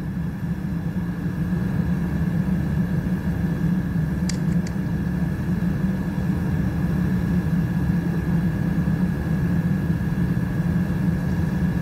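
Steady low drone of a steamship's engine running under way, with a faint steady high whine over it and two light clicks about four seconds in.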